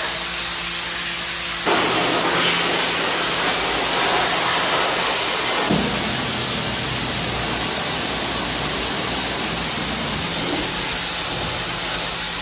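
Kärcher electric pressure washer running: the high-pressure water jet hisses steadily against the floor and walls, over a low hum from the pump motor. The spray gets a little louder about two seconds in.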